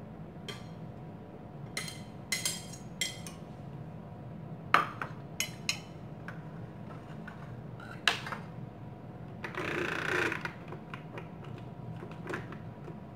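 Ceramic plates and a knife clinking and knocking on a plastic cutting board and glass tabletop: a run of separate clatters with a brief scrape about ten seconds in, over a steady low hum.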